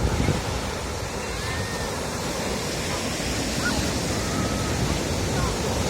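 Ocean surf washing continuously onto a beach, a steady rushing noise with a low rumble.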